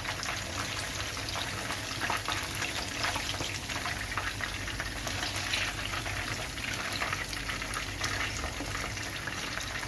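Masala-coated chicken pieces frying in hot oil, fully cooked on both sides: a steady sizzle with dense crackling.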